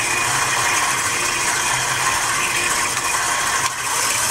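Stand mixer running, its flat beater paddle churning cream cheese cheesecake batter in a steel bowl: a steady mechanical whine.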